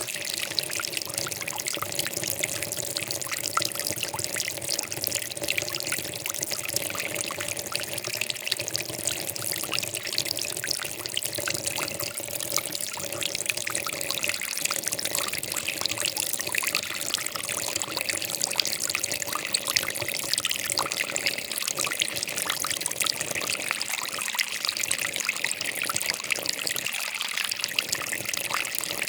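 Flowing water trickling steadily, an unbroken babble full of small splashes.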